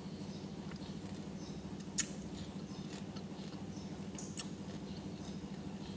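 Someone chewing a piece of fresh pineapple, with small wet mouth clicks and smacks, one sharper about two seconds in, over a steady low hum.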